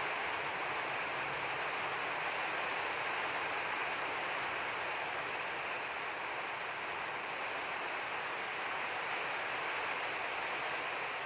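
Steady rain, an even hiss with no separate drops or changes.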